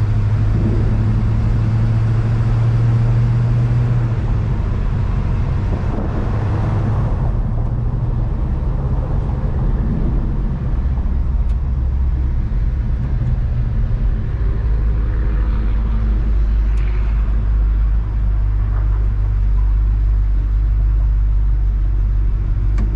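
1970 Chevrolet C10 pickup driving on the road: a steady engine drone with road noise. About seven seconds in, the engine note drops to a deeper drone and holds there.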